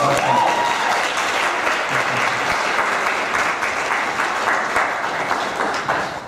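Small audience applauding, with a short whoop at the start.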